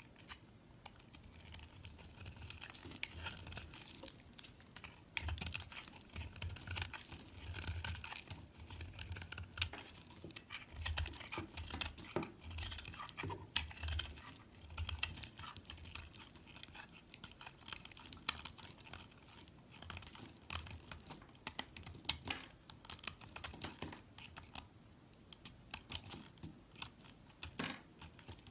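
Crunchy slime being pressed and worked by hand, giving a dense, irregular crackle of rapid small clicks with soft low thuds between.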